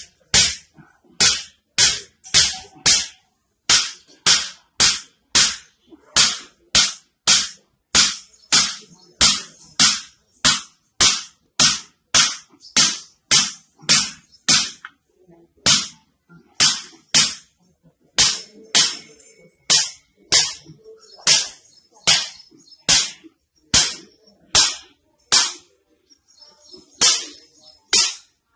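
A hammer striking a patient's back in sharp cracks, about two a second, with a few short pauses, as a hammer-tapping treatment for spine problems.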